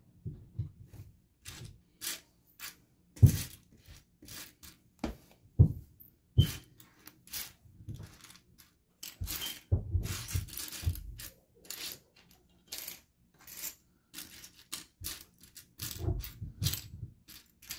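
Small plastic building bricks clicking and clattering as a hand rakes through a loose pile of them, in irregular bursts of short clicks. Two louder thumps about three and five and a half seconds in.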